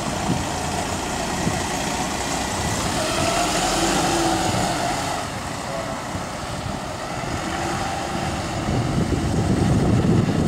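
Rear-engined diesel city bus pulling away and accelerating; its engine note climbs about three to four seconds in, then eases as it drives off.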